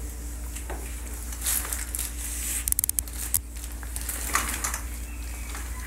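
Crackly rustling and crinkling noises come in irregular bursts over a steady low hum. About halfway through there is a quick run of about six sharp clicks, followed by a couple of single clicks.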